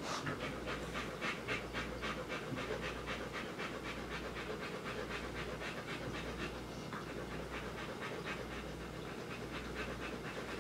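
Rottweiler panting in a fast, even rhythm while lying on her side.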